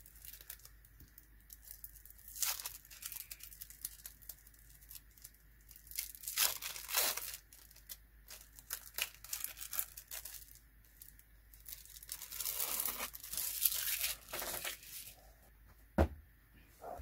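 Clear plastic film being peeled off a sticker-maker strip and crinkled in the hands, crackling and tearing in several short spells. A single sharp tap near the end.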